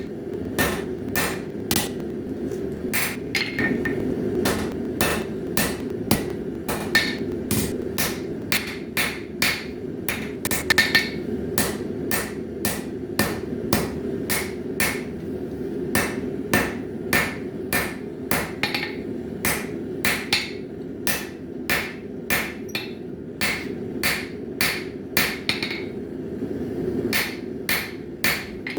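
Hand-forging hammer blows on a 1075 high-carbon steel bar, struck in a steady rhythm of about two blows a second, each with a short metallic ring. A steady low rumble runs underneath.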